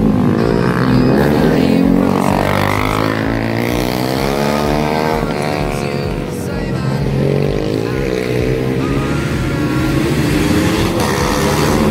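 Motorcycle engines revving and easing off as the bikes ride past, their pitch rising and falling again and again.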